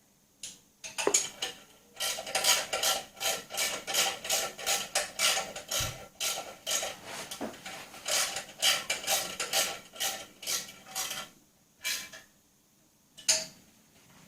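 Metal clicking and ratcheting from tools and fittings as an oil catch tank is fastened onto a mini bike: a quick run of sharp strokes, about three a second, for most of the time, with a few single clicks at the start and near the end.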